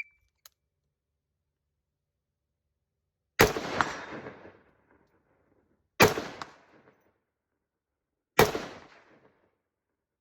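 Three rifle shots about two and a half seconds apart, each a sharp crack followed by about a second of echo dying away.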